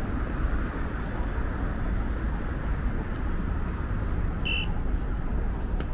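City street ambience: a steady hum of traffic noise, with one short, high electronic beep late in.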